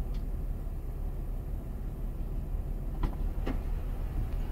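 Car engine idling with a steady low rumble, heard from inside the car's cabin; two short knocks come about three seconds in.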